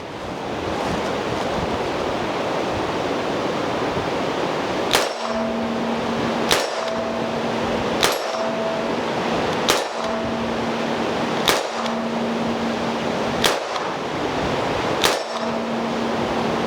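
Ruger GP100 seven-shot revolver fired seven times in double action with .38 Special, a shot every second and a half to two seconds, each followed by a short metallic ring. Wind noise on the microphone throughout.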